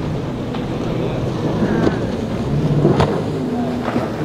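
Boat outboard engines running steadily over wind noise on the microphone, with a sharp click about three seconds in.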